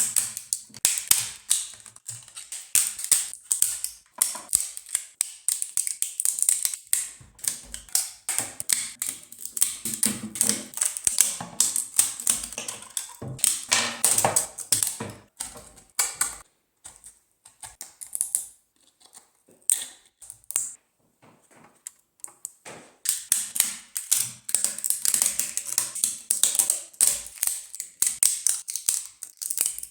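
3D-printed plastic support material being snapped and picked off a printed figure: rapid runs of sharp plastic clicks and crackles. The clicks thin out to a few scattered snaps for several seconds mid-way, then pick up again.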